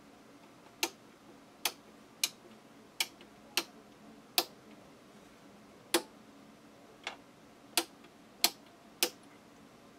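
A powered-up toaster, its elements drawing full current, gives about a dozen sharp ticks at uneven intervals of under a second to a second and a half.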